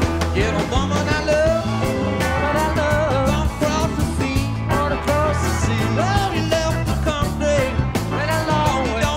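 A band playing a blues on an amplified hollow-body archtop electric guitar over a steady low bass pulse, with a wavering melody line on top.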